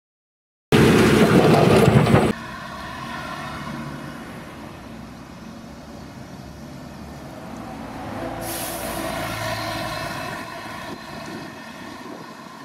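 Diesel engines and hydraulics of Volvo crawler excavators working a demolition, running steadily with a whine of even tones and swelling with added hiss about eight to eleven seconds in. About a second in, a loud burst of noise lasts under two seconds and cuts off suddenly.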